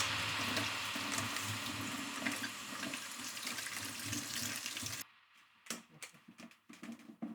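Kitchen tap running into a sink, cutting off suddenly about five seconds in. A few faint clicks and knocks follow.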